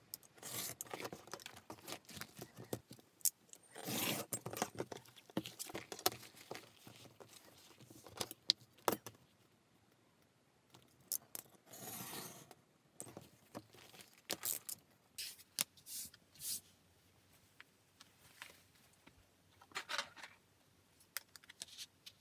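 Close-up leatherworking handling sounds: a knife drawn in several long strokes through crocodile leather along a steel ruler, between clicks and scrapes of the ruler and the hide being moved on a cutting mat. Paper rustles near the end.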